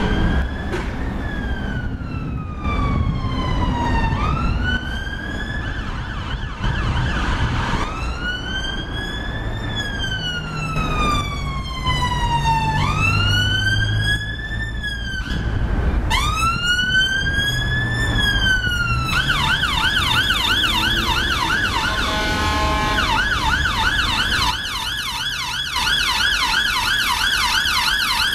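Emergency ambulance siren sounding in a slow wail, each tone rising and falling over about four seconds, then switching to a fast yelp about two-thirds of the way through. Shortly after the switch there is a brief bullhorn blast, with traffic rumbling underneath.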